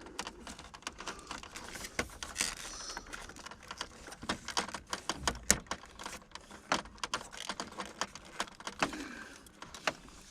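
Irregular light clicks and rattles of hands handling a wiring harness and small parts, a few sharper ticks among them, with no steady rhythm.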